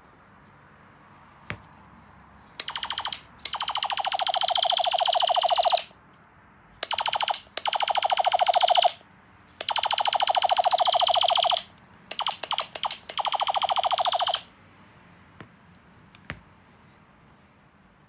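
Electronic ray-gun sound-effect circuit of a homemade ray gun firing through its speaker. It gives a series of zapping laser bursts with falling pitch sweeps over a fast pulse, some short and some held for about two seconds. A few separate clicks come before and after the bursts.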